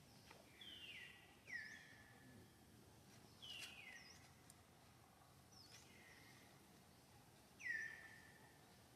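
A bird calling over and over, faintly, over a steady outdoor background. Each call is a short high note and then a whistle that drops in pitch and holds. The call comes about four times, and the last one, near the end, is the loudest.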